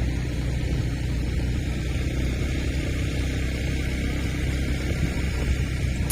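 An engine running steadily: a low, even hum with a faint steady high whine over it.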